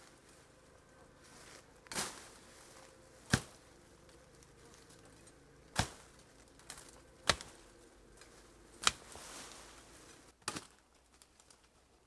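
A long-handled, hooked machete chopping into bamboo and brush: six sharp chops at an uneven pace, roughly one every one and a half to two and a half seconds.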